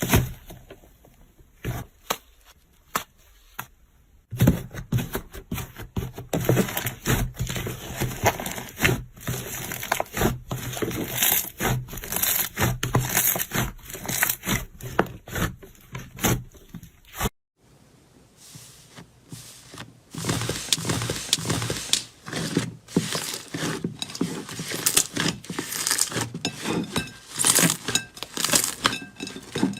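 Slime being squeezed and kneaded by hand, giving off dense crackling and crunching clicks. A few scattered pops open it, then two long stretches of crackling with a brief pause a little past halfway.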